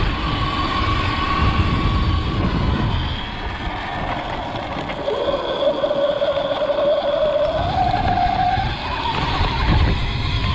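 Sur-Ron electric dirt bike's motor whining, its pitch dropping about halfway through and then climbing again as the speed changes, under heavy wind rumble on the microphone.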